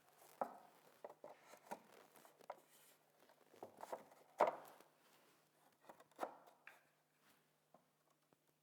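Irregular wooden knocks and taps as glued drawer sides, tongues and plywood bottom are pushed and knocked together during assembly. The loudest knock comes about halfway through.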